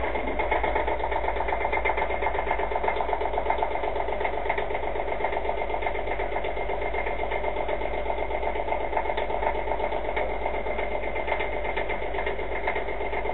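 Small inboard boat engine idling steadily with a fast, even beat, heard from just above the open engine bay.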